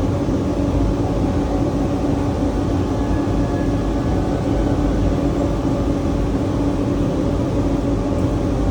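Steady industrial machinery noise: a constant low rumble with an even hum running on, no starts or stops.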